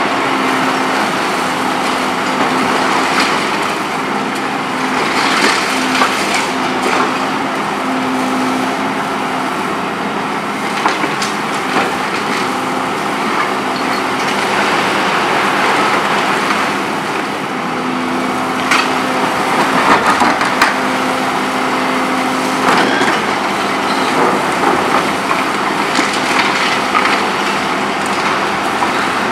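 Volvo EC 700B HR demolition excavator running under load while its MBI CR 80R hydraulic concrete shear crushes hard, heavily steel-reinforced concrete. Repeated cracks and crunches of breaking concrete sound over the machine's steady running and a humming note that comes and goes.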